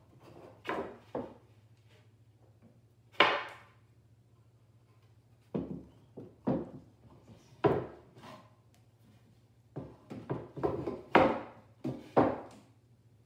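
Wooden parts of a printing press, the bed block and press bed, being set in place and fitted together: a series of separate wooden knocks and clunks, with the loudest about three seconds in and two more near the end.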